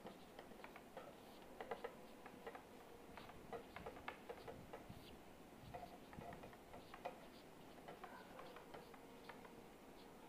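Near silence with faint, irregular clicks and short scratches of handwriting.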